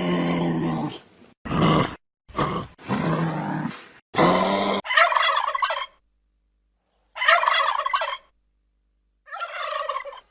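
Animal calls in abruptly cut segments: several pitched calls in the first half, then three shorter rapid, fluttering calls separated by silent gaps.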